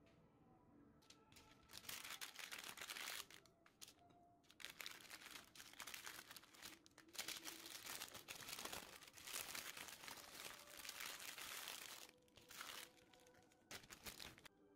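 A sheet of baking paper crinkling and rustling as it is folded by hand into a parcel, in repeated bursts that begin about two seconds in and stop near the end.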